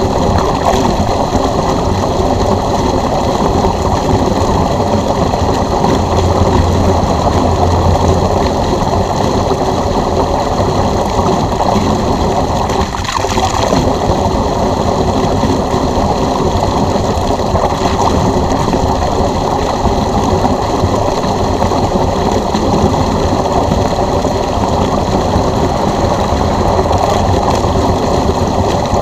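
Water discharging from a pool drain hose driven by an electric pool pump: a steady rush of water with the pump's even hum running through it. The flow falters briefly about thirteen seconds in.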